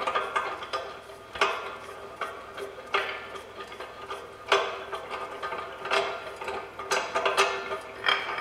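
Hand crank of a JEGS engine stand's geared head being turned, giving irregular metallic clicks and clunks about once a second. The head has a small amount of play.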